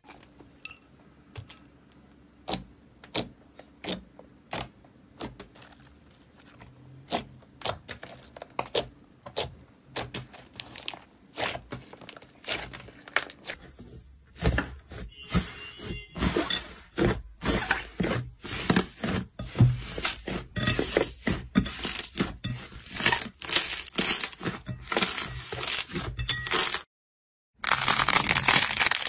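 Slime being squeezed, pressed and poked by hand: scattered sharp wet clicks and pops at first, then a much denser run of crackling and popping about halfway through. Near the end the sound cuts out for a moment, then the crackling resumes.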